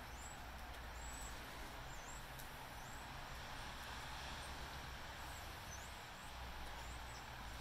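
Small birds giving short, high chirps about once a second over a steady outdoor hiss and a low rumble.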